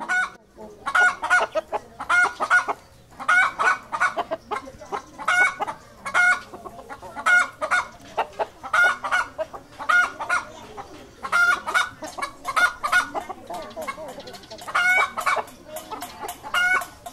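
Chickens clucking in a string of short calls, about one burst every second.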